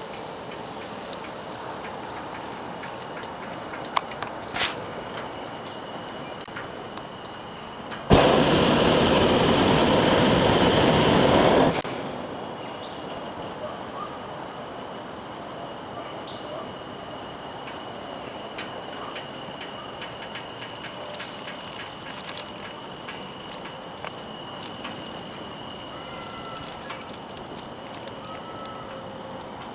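Steady insect chorus, with a couple of short knocks around four seconds in. About eight seconds in, a hot-air balloon's propane burner comes on abruptly and runs evenly for about four seconds before cutting off; it is the loudest sound.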